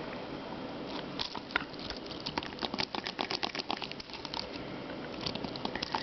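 Cyber Clean putty being pressed onto a dirty computer keyboard and pulled off again, with quick, irregular clicking and crackling of the keys and the sticky putty.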